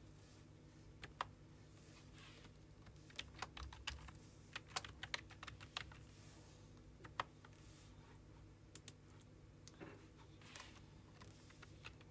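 Computer keyboard typing: faint, scattered key clicks in short irregular runs, over a steady low hum.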